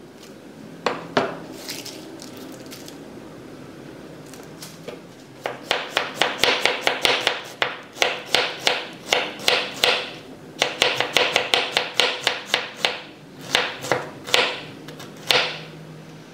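Chef's knife slicing an onion on a wooden cutting board: a few separate knocks at first, then about five seconds in a quick run of chops, roughly three a second with short pauses, each a crisp knock of the blade on the board.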